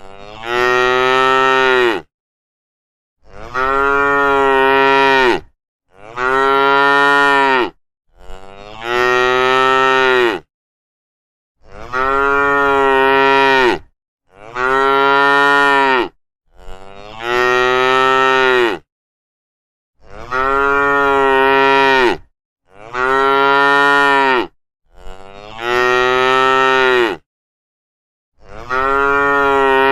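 Cattle mooing: about eleven long, drawn-out moos, each about two seconds long, following one another with short dead-silent gaps between them.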